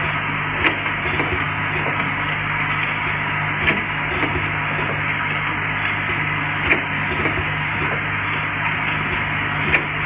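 YX-50G rotary essential-oil bottle filling, plugging and capping machine running: a steady mechanical hum and clatter, with a sharp click about every three seconds that stands out above the rest.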